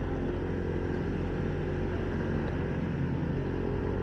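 Motorcycle engine running steadily while riding, with road and wind noise, picked up on a homemade earphone mic covered in dish-sponge foam.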